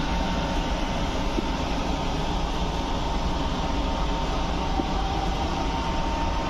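Steady interior noise of an Indian Railways first class AC sleeper coach: a constant low rumble and hum with a thin, steady high tone above it.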